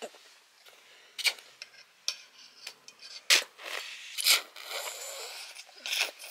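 Scattered handling sounds: five or so sharp clicks and knocks spaced about a second apart, with light scraping and rustling between them.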